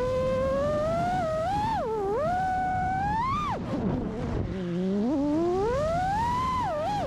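Freestyle FPV quadcopter's brushless motors (Hypetrain motors on a 6S battery) whining, the pitch sweeping up and down with the throttle; it drops low about four seconds in, then climbs steadily again.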